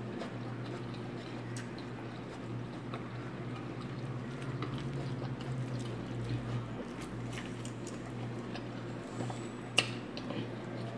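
A person chewing food with the mouth closed: faint wet mouth sounds and small ticks over a steady low hum, with one sharper click near the end.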